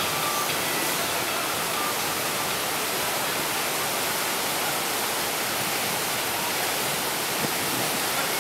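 Steady rush of water from an artificial standing-wave machine, a sheet of pumped water pouring up the ramp and breaking into a curling wave.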